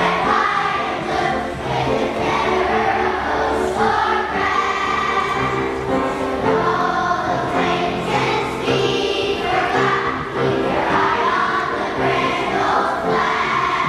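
A choir of young children singing together in unison over an instrumental accompaniment.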